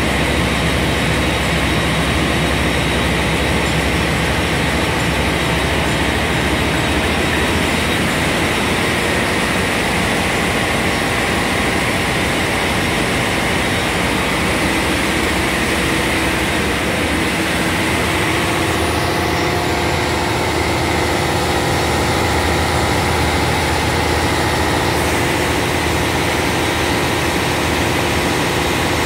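Niigata diesel engine running steadily at a constant speed, loud and unbroken.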